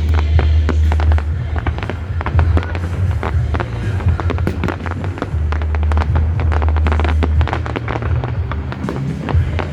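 Fireworks going off in quick succession, a dense run of bangs and crackles, over loud music with a heavy, steady bass line.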